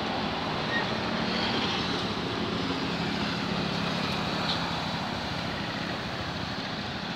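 Motorbike engine running with street traffic noise around it: a steady low engine hum under a constant road noise.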